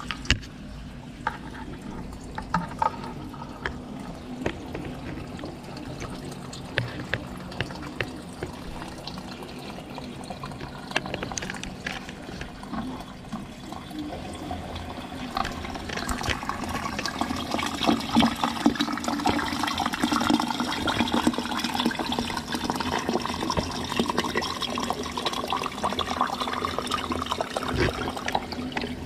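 Water churning and gurgling in a blocked floor-drain pipe as a black drain-clearing tool works inside it, with scattered clicks and knocks; it grows louder about halfway through.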